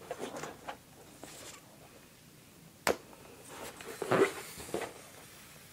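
Faint handling of a helium balloon, a sharp click about three seconds in, then a short breathy rush about four seconds in as the helium is breathed in from the balloon.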